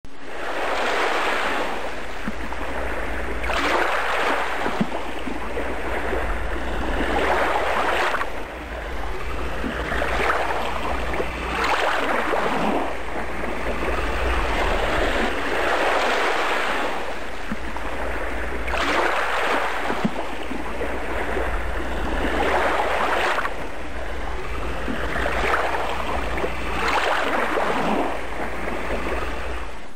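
Ocean surf: waves breaking and washing back, swelling every few seconds over a steady low rumble.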